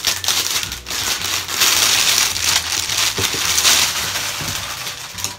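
Toy packaging being torn open and crumpled by hand: a dense run of crinkling and ripping.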